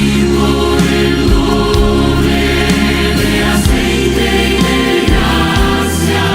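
Christian choral music: a choir singing over a steady instrumental accompaniment with a sustained bass.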